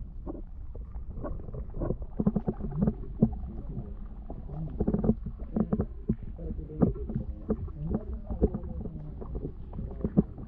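Muffled underwater sound picked up by a GoPro in its waterproof housing: a steady low rumble with irregular knocks and clicks.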